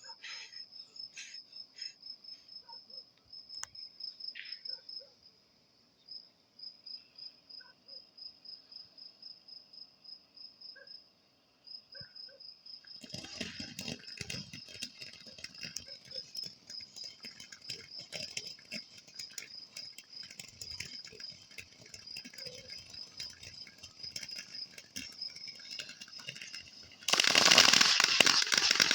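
Crickets chirping in a steady, rapid pulse all through. About halfway in, a firework starts crackling and fizzing continuously. Near the end, a much louder crackling firework goes off.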